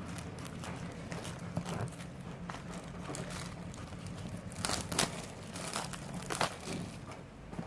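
Crinkling and rustling of a smartphone's retail box and its packaging being handled, irregular crackles with a few louder ones about five and six and a half seconds in.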